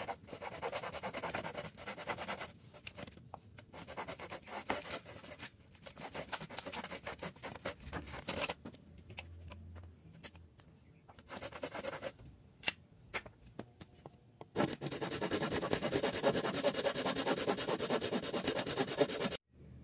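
Handsaw cutting through a weathered wooden pallet board in quick back-and-forth strokes. The sawing pauses partway through, with a few separate knocks, then goes on fast and steady before stopping suddenly just before the end.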